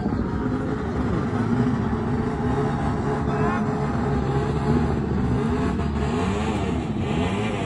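Racing motorcycles' engines revving, several at once, their pitch climbing and falling again and again.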